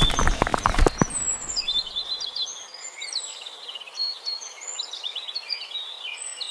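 Small birds chirping over a light background hiss, after a brief loud burst of dense rattling noise that stops about a second in.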